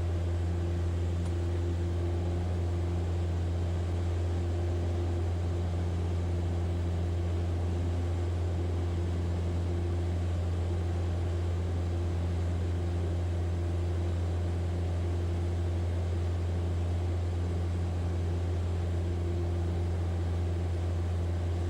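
Piper Cherokee's piston engine and propeller running steadily at climb power just after takeoff: a constant low drone that does not change.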